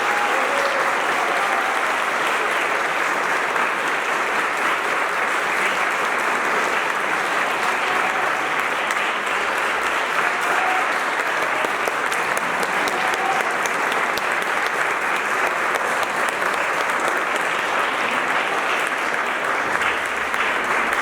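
Audience applauding: a long, steady round of clapping that begins to fade near the end.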